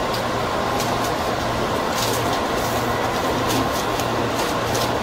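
JR 205 series electric commuter train running, heard from its leading car: a steady rumble of wheels on rail with a few light, irregular ticks.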